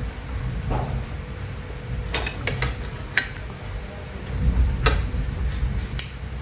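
A few light clicks of cutlery against a plate during a meal, over a steady low rumble.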